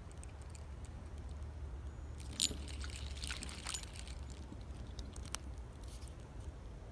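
Short burst of light clicking and rattling from handling a fishing rod and reel, about two and a half seconds in and lasting a second and a half, with one more click later, over a steady low rumble.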